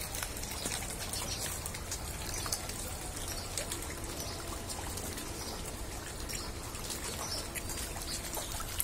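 Water trickling and splashing steadily at a fish pond's surface, with many small, quick splashes as a crowd of fish takes the scattered feed.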